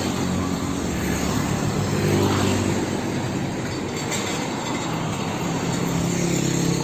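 Road traffic dominated by a car-carrier truck driving past, its diesel engine giving a steady low hum over tyre and road noise.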